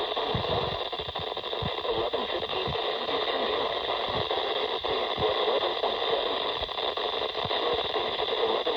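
Radio static: a steady hiss from a weather radio receiver on a weak NOAA Weather Radio signal, broken by scattered low crackles.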